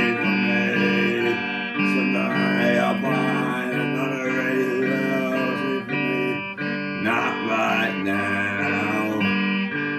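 Electric guitar played as a song accompaniment: steady repeated chords, with wavering, bending notes over them, most plainly from about seven seconds in.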